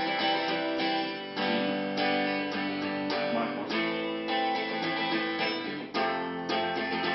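Electric guitar played with a clean tone through an amplifier, strumming a chord sequence that brings in an A minor chord, the sad-sounding chord. Each chord rings on until the next strum.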